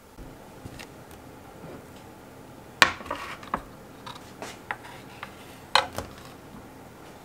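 A ceramic bowl set down on a wooden serving tray and shifted into place: a sharp knock about three seconds in, then several lighter knocks and clinks. A spoon is laid on the tray with a double knock near six seconds.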